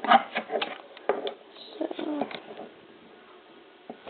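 Clicks and small knocks of a hard plastic Lego piece being handled close to the microphone, quick and irregular at first, then thinning out to a few faint ticks after about two and a half seconds.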